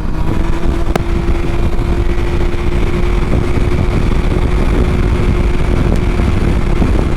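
Three-wheeled motorcycle cruising at a steady speed: a steady engine hum under a heavy low rumble of wind and road noise on the GoPro microphone.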